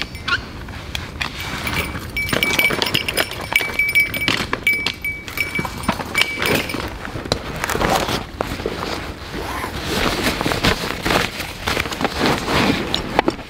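Camping gear being handled and pulled out of a canvas backpack: rustling of fabric with many small clicks, knocks and clinks of items inside. A thin steady high tone, broken a few times, sounds through the first half and stops about halfway.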